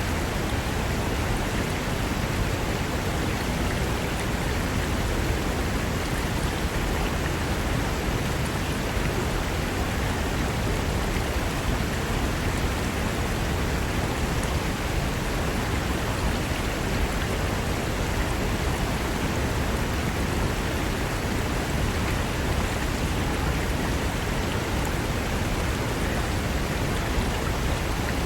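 Fast mountain river rushing over rocks: a steady, even roar of water with no breaks.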